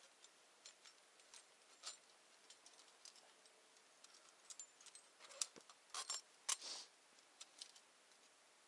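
Faint scattered clicks and small metallic clinks of an unsprung steel trap being handled and taken down by hand, with a short cluster of louder clinks about two-thirds of the way through.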